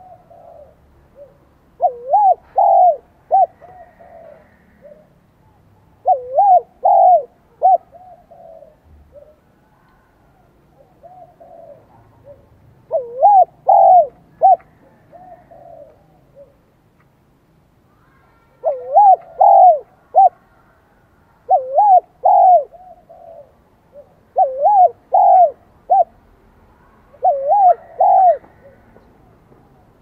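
Spotted dove cooing in its high 'giọng son' voice: about seven phrases a few seconds apart, each a run of quick loud coos trailing off in softer notes.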